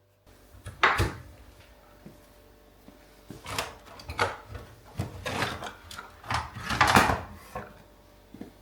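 A string of knocks, bumps and scrapes from things being handled in a kitchen, the sharpest about a second in and a cluster of them around two-thirds of the way through.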